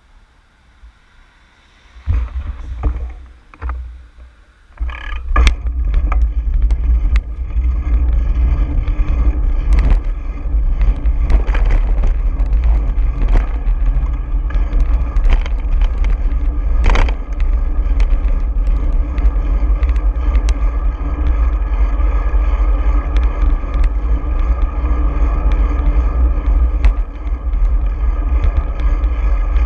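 Wind buffeting the microphone of an action camera on a bicycle as it pulls away from a stop. It is quiet at first, comes in gusts about two seconds in, and from about five seconds on becomes a steady loud rumble. Scattered knocks and rattles from the road surface run through it.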